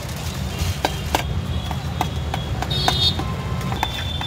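Busy street ambience: a steady low traffic rumble with a scattering of sharp clicks and knocks, two or three a second, and a brief high tone about three seconds in.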